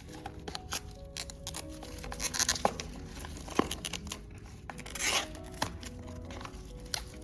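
Product packaging being handled and torn open, with small clicks and rustling and two louder tearing rips, the louder of them about five seconds in, over soft background music.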